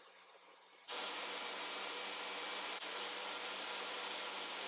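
DeWalt table saw and its shop vacuum dust extractor running steadily with the blade spinning free, ready for a cut. The noise comes in suddenly about a second in, over faint room tone.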